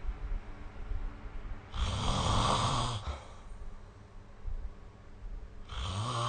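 A sleeping person snoring: two snores about four seconds apart, each lasting about a second, the second starting near the end.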